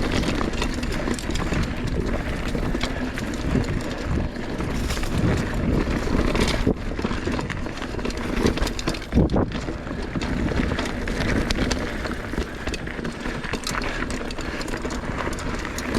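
Mountain bike riding down a chunky, rooty trail: the tyres rumble and the bike clatters with frequent sharp knocks as it rolls over roots and rocks.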